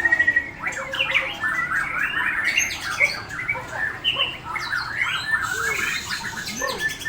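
Several caged white-rumped shamas singing at once, a dense overlapping chatter of quick chirps and whistled phrases. A long, steady held whistle sounds at the very start.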